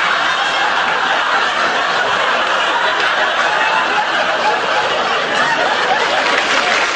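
Studio audience laughing steadily, with the actors' own giggling mixed in as they break up on set.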